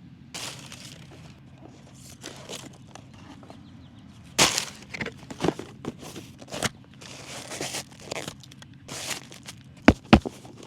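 Boot box and packaging being handled and opened: cardboard and paper rustling and scraping in short, irregular bursts, with two sharp taps near the end.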